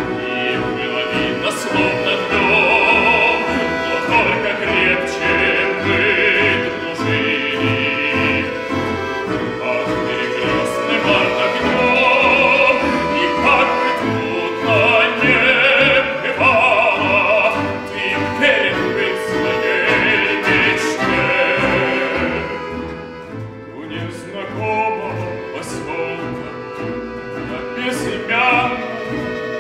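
A male voice sings in a full, classical style with vibrato, accompanied by a Russian folk-instrument ensemble of plucked domras, a bayan (button accordion) and a contrabass balalaika. The music drops in volume briefly about three-quarters of the way through.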